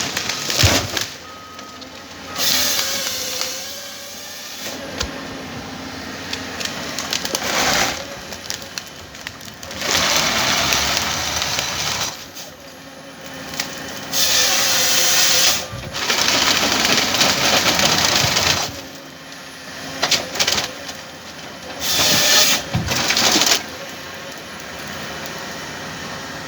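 Komatsu 931XC forestry harvester running steadily while its C144 harvester head works logs in repeated loud stretches of noise, each lasting one to three seconds.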